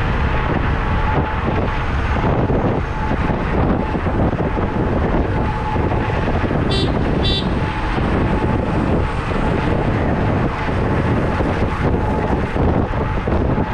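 Wind rushing over the microphone and a steady road and traffic rumble while riding a Kaabo Mantis electric scooter at speed, with a faint steady whine underneath. Two brief high-pitched chirps about seven seconds in.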